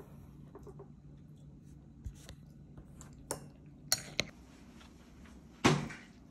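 Metal spoon clinking and scraping against a ceramic bowl, several light clinks, then one louder knock near the end.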